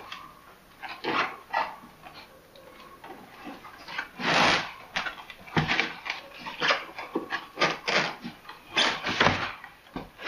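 Foam packing end caps and plastic bag scraping and rustling against cardboard in a series of irregular bursts as a tightly packed PC case is worked out of its box.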